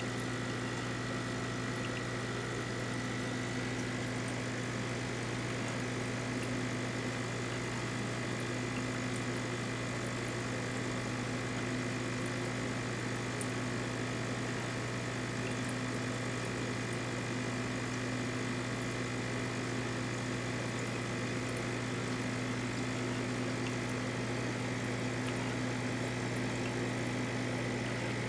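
Aquarium pump running steadily: a constant low hum with a faint high whine over a hiss of moving water.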